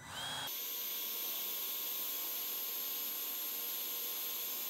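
Cordless Milwaukee heat gun running, its fan blowing a steady hiss with a thin high whine, as it shrinks a heat-shrink butt connector onto a wire. It comes on about half a second in.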